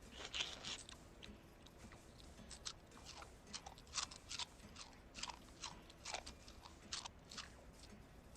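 Cartoon eating sound effect: a run of irregular crunchy chewing and munching bites, each a short crackle.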